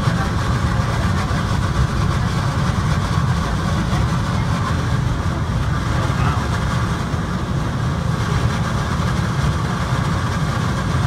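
Airport people-mover train running along its guideway, heard from inside the car as a steady low rumble while it pulls into a station.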